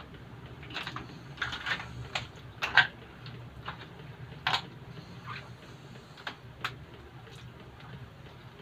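Mussel shells and shrimp clicking and tapping against a plastic plate as they are picked up by hand and dropped into a pot of soup: irregular taps, one or two a second, with a few louder ones about three and four and a half seconds in.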